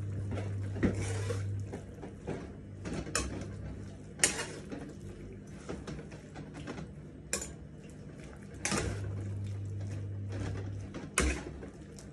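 Spatula scraping and knocking against a pan as beef is stirred, about six sharp clacks spread out over a steady sizzle of liquid cooking off in the hot pan. A low hum comes in twice for about two seconds.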